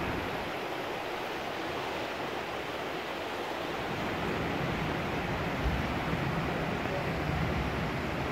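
Swift, silt-laden Swat River current rushing past the bank: a steady hiss of moving water. A low rumble joins about halfway, with one brief low thump a little after.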